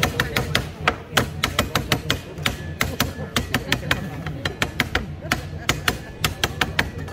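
A kitchen knife knocking against a cutting board in quick, uneven strikes, several a second, as a chicken is cut up against the clock.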